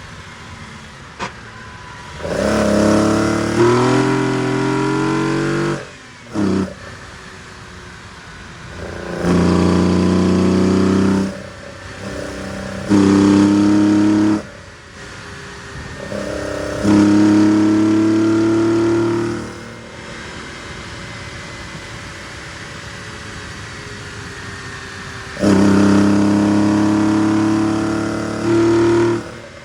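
BMW M20B20 2.0-litre inline-six on Weber DCOE 40 carburettors idling and being blipped, with about six bursts of revs held a second or three each before dropping back to idle. The carburettors are not yet set up and the mixture is running rich.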